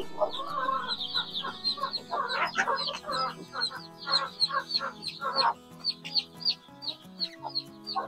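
A mother hen clucking over her brood while many young chicks keep up a steady run of high, falling peeps; the hen's louder clucks stop about five seconds in, leaving the chicks peeping.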